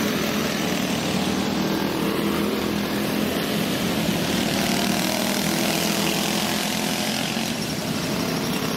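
Small go-kart engines running steadily at racing speed.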